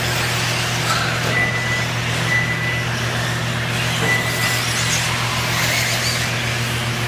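1:8 scale electric off-road RC buggies running on the track, a steady mix of motor whine and tyre noise over a constant low hum, with three short high beeps.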